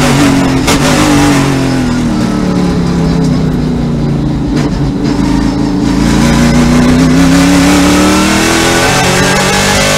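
A Trans Am TA2 race car's V8 heard from inside the cockpit. The engine note falls steadily as the car brakes hard from high revs, about 6,600 rpm, down to about 3,500 rpm for a slow corner. About halfway through it rises again as the driver gets back on the throttle and accelerates out.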